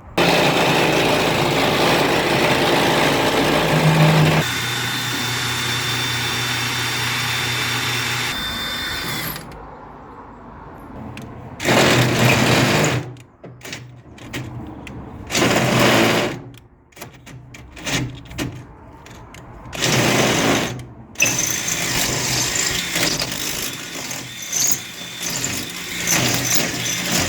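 Handheld electric power tool running: a long stretch at first, then short bursts of about a second each, then running steadily again near the end.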